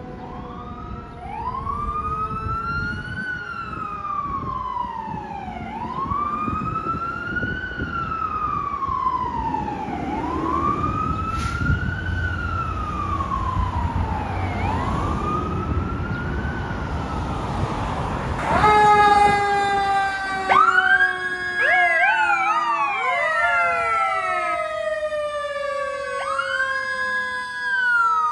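Fire trucks responding with electronic sirens. A wail rises and falls about every two and a half seconds over the rumble of the trucks' diesel engines. About two-thirds of the way through, another fire truck takes over with several sirens sounding at once, quick rising yelps and long falling tones, loudest just after the change.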